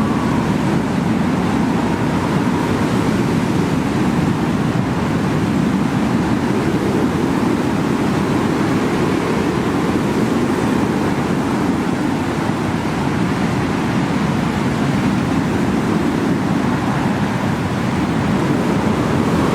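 Strong wind blowing and buffeting the microphone, a loud steady roar that swells and eases a little over time.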